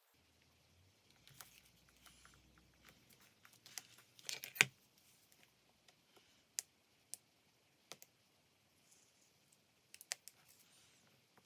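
Paper-craft handling on a desk: faint rustling of paper and stickers with scattered sharp taps and clicks, the loudest cluster about four and a half seconds in.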